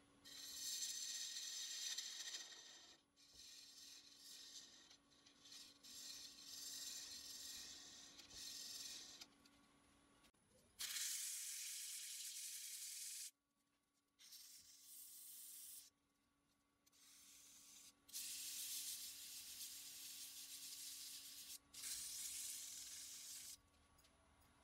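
Sandpaper rubbing against an ash workpiece spinning on a wood lathe: several separate stretches of scratchy hiss, each a few seconds long, that start and stop abruptly. A steady low motor hum runs underneath.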